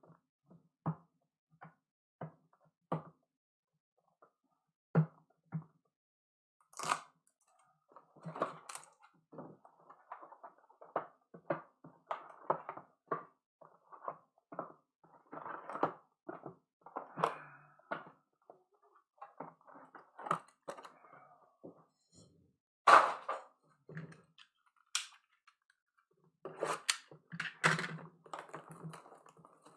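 Cardboard trading-card hobby boxes being opened and the small boxes inside handled: many short taps and knocks of cardboard with rustling and scraping between them, and one louder knock about three quarters of the way through.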